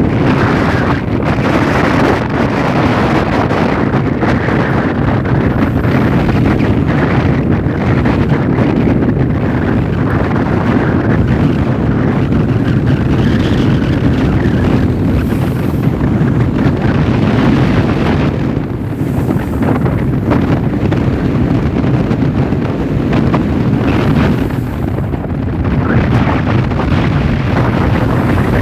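Strong wind buffeting the microphone aboard a tugboat, over the steady low rumble of the boat's engine.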